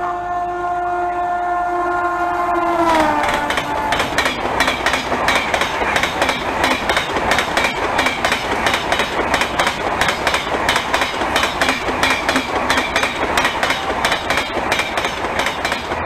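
WAP-7 electric locomotive hauling the Rajdhani Express sounds its horn as it passes at speed, the horn's pitch dropping as it goes by about three seconds in. After that comes the rapid, continuous clickety-clack of the coaches' wheels over the rail joints as the train rushes past.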